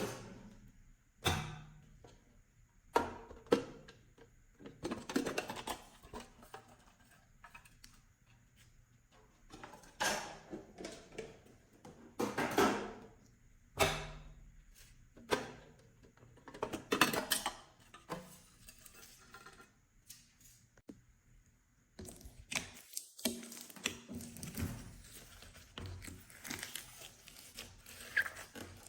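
Slime being mixed and squished by hand, making irregular sticky clicks, smacks and squelches. There is a short lull about two-thirds of the way through, then a stretch of denser small crackles.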